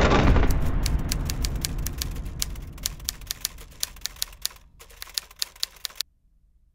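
Typewriter keys striking one by one in an irregular run of several a second, over a low rumble that fades away; the typing stops about six seconds in.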